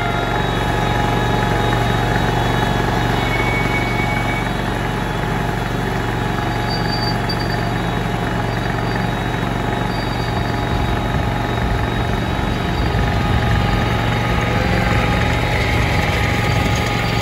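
Petrol engine of a 7.25-inch gauge miniature Victorian Railways T Class locomotive running steadily as it hauls a ride-on train, heard from the carriage right behind it.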